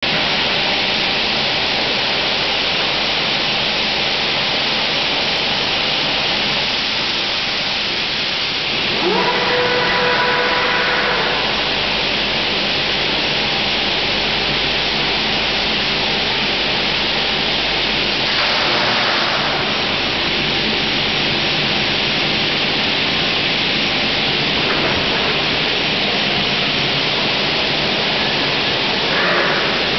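Elumatec SBZ 610 CNC profile machining centre running, with a steady hiss of machine noise. About nine seconds in, a motor whine rises quickly in pitch and holds for about two seconds. Short surges of noise come near nineteen seconds and again near the end.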